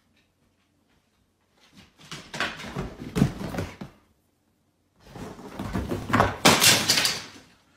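Scuffling, rubbing and knocks from a golden retriever scrambling across a leather sofa, in two bursts: one about two seconds in and a louder one about five seconds in.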